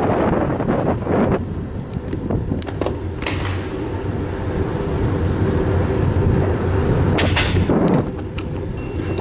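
Road bicycle rolling over pavement: steady tyre rumble and rattle with wind on the microphone, and a few sharp clacks from bumps, the loudest pair about seven seconds in.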